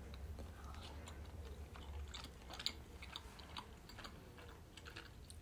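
Faint chewing of boiled pelmeni: soft, wet mouth clicks and smacks, scattered irregularly.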